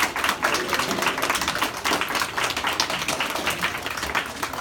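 A small audience, mostly children, clapping their hands in applause, many quick overlapping claps that thin out a little near the end.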